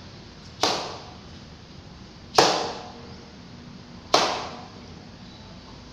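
Nunchaku end smacking into a handheld kick-paddle target in overhead downward strikes: three sharp smacks about a second and three-quarters apart, each fading within half a second.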